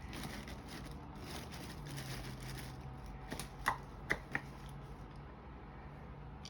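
Hands working with adhesive tape, rustling and crinkling as it is pulled and handled, with three sharp clicks in quick succession a little past the middle.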